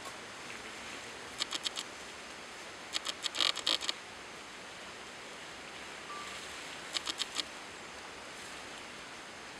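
Steady outdoor hiss, broken by three short clusters of quick, crisp rustling clicks: about a second and a half in, a louder run at three to four seconds, and again at about seven seconds.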